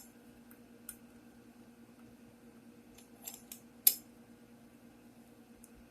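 A few small, sharp clicks over a quiet background: one about a second in, a quick few just after three seconds, and the loudest near four seconds.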